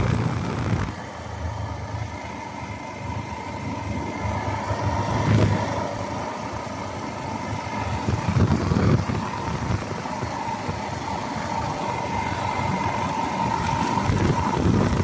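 Yamaha motorcycle engine running while the bike is ridden along at moderate speed, with wind and road noise. A steady tone runs through it, and the overall level drops about a second in.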